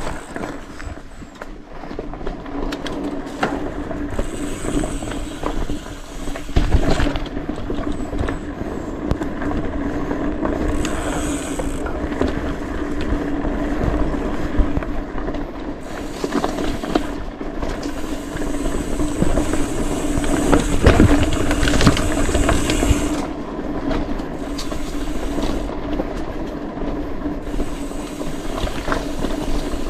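Mountain bike descending a rough dirt trail: the rear freehub (Speedone Soldier hub) ratchets in a steady buzz as the bike coasts, over tyre and drivetrain rattle. Heavy knocks from bumps come about seven seconds in and again past twenty seconds, the loudest near twenty-one seconds.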